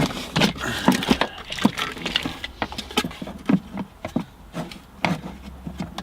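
Irregular clicks, taps and knocks of hard parts being handled and pressed into place while a CB radio mount is test-fitted in a pickup's cab.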